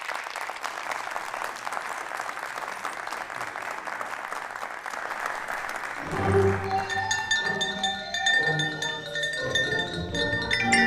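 Audience applause, then about six seconds in a children's Orff-instrument ensemble starts playing, with xylophone and glockenspiel-like notes ringing over low bass notes.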